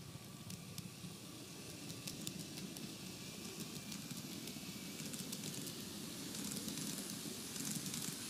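TOMIX N-gauge 733-3000 series model electric train running on plastic track: a steady rolling rumble from the wheels and motor with scattered light clicks, and a faint motor whine that fades in the first couple of seconds.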